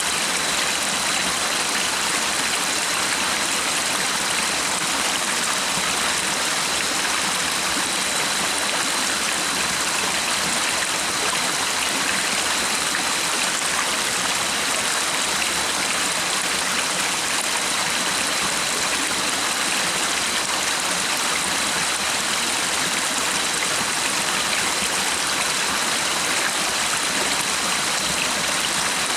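Stream water running in a steady, unbroken rush, with a faint thin high tone held under it.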